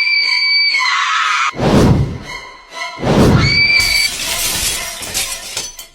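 Added comedy sound effects: a high held squeal that sounds twice, and two heavy thuds about a second and a half apart, followed by a hissing rush.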